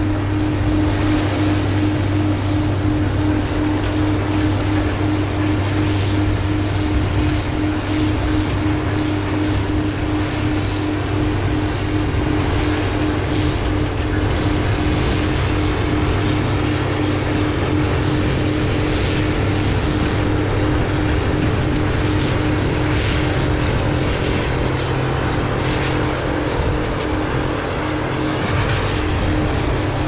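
A machine running steadily: a constant hum holding one unchanging tone, with some wind hiss over it.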